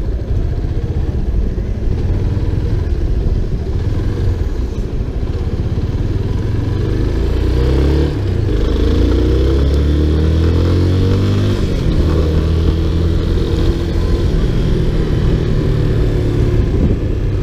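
Motorcycle engine running while riding; about halfway through it accelerates, its pitch climbing, dropping at a gear change and climbing again, then it holds a steady pitch.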